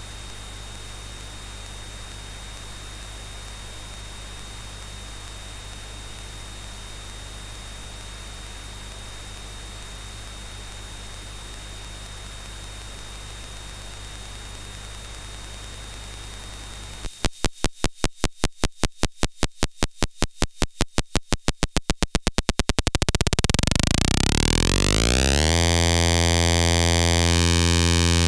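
An ARP 1601 sequencer clone's stepped voltage output, clocked by the square wave of a TTSH (ARP 2600 clone) oscillator and fed into the synth's mixer: after a long stretch of steady hiss and mains hum, clicks start about two-thirds of the way in and quicken into a rising buzz as the clock speeds up to audio rate, then settle into a steady, buzzy low tone, the sequencer's step pattern now acting as the oscillator's waveform.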